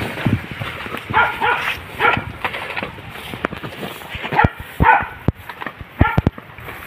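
Hunting dogs barking during a chase, in short groups of barks several times over. Sharp knocks and rustling come from someone pushing through brush.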